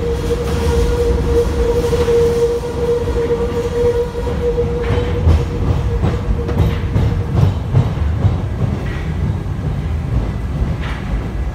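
MF67 metro train running, heard inside the car: a steady low rumble with a whine that fades away a few seconds in, then a run of clacks from the wheels over rail joints in the middle, and brief high squeaks near the end.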